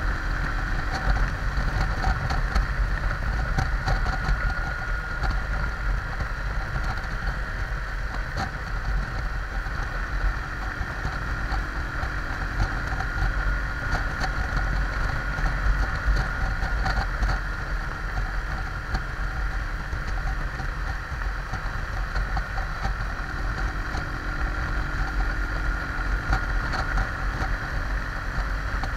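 Junak motorcycle engine running steadily at cruising speed, mixed with wind and road noise. The engine note stands out more clearly at the start and again near the end.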